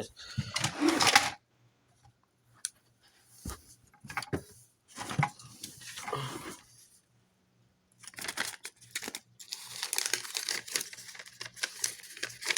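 Things being handled and rummaged through: rustling and crinkling with scattered clicks and knocks, thickest over the last few seconds, above a faint steady low hum.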